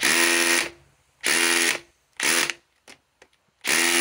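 DeWalt DCF870 hydraulic (oil-pulse) impact driver run at speed 2 to back a screw out of a log, in four short bursts of about half a second each, the last near the end.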